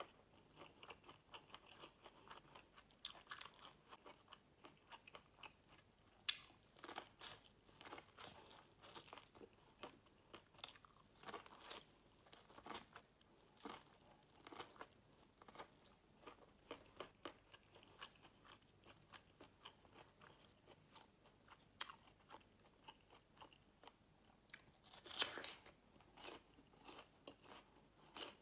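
Quiet, close-miked eating: biting kernels off a cob of boiled corn and chewing them, a steady run of small crunches and mouth clicks, with one louder crunchy bite near the end.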